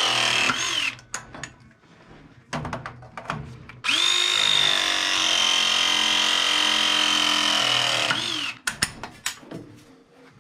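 Power drill running in two runs: the first stops just under a second in, and the second spins up about four seconds in, holds a steady whine for about four seconds, then winds down. Scattered clicks and knocks come between the runs.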